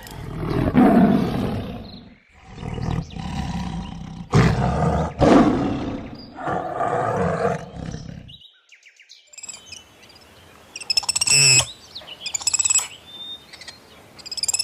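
An animal's loud, rough calls in several bursts, followed after a brief pause by high chirping bird calls.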